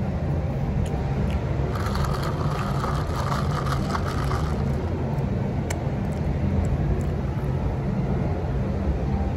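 Steady low rumble of a moving vehicle's engine and road noise. A higher-pitched sound rises over it for a few seconds, starting about two seconds in.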